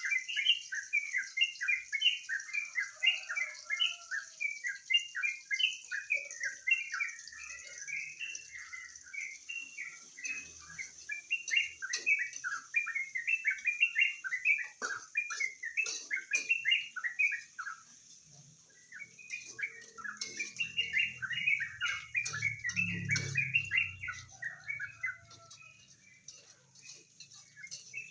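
Yellow-vented bulbul (trucukan) singing, a fast run of chirping notes that breaks off briefly twice, over a steady high-pitched hiss. A low rumble sounds about two-thirds of the way through.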